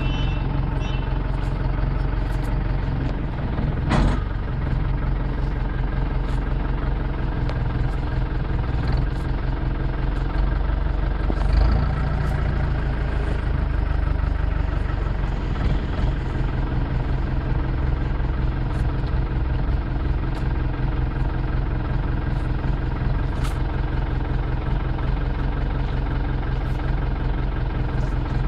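Vehicle engine idling steadily, with a single sharp knock about four seconds in.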